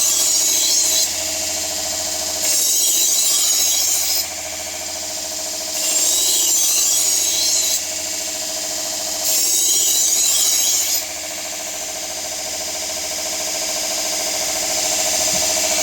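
Vevor 1x30 belt grinder running steadily on a 1,000-grit belt while a kitchen knife blade is ground on it in four passes of about two seconds each, each pass a loud hissing grind over the motor's steady whine. For the last few seconds the grinder runs alone.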